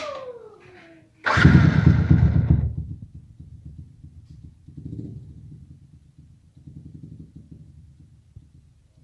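Yamaha Jupiter MX's 135 cc single-cylinder four-stroke engine running through a newly fitted Pro Liner aftermarket exhaust. It gives a loud rev about a second in, then drops to a low, uneven idle with a couple of small blips. The exhaust note is very bassy.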